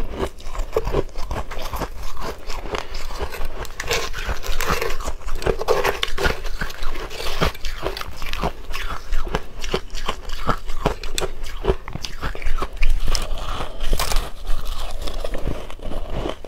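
Close-miked biting and crunching of soft shaved ice dusted with matcha powder: many quick, irregular crunches as mouthfuls are chewed, with a metal spoon scooping ice in a steel bowl now and then.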